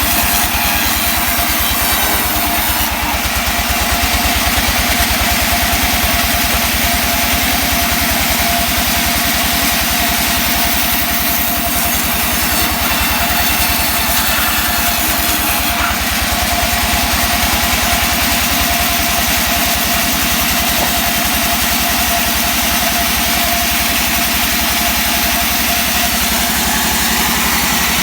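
Engine of a wood-sawing machine running steadily at a constant speed, with no clear rise or drop under load.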